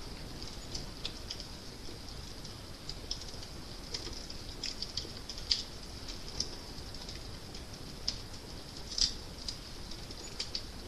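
Fire crackling: a steady hiss with irregular sharp pops and snaps, the loudest about five and a half and nine seconds in.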